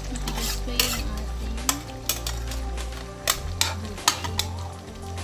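Metal spoon stirring chicken stew in a metal wok, scraping and clinking against the pan about eight times at irregular intervals.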